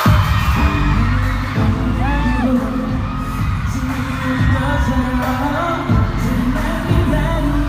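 Live K-pop concert performance over an arena sound system: male voices singing over a heavy bass beat that kicks in at the start. The sound is recorded on a fan's phone in the audience.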